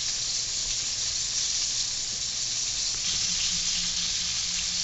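Pieces of chicken frying in oil on a hot pan, a steady sizzle.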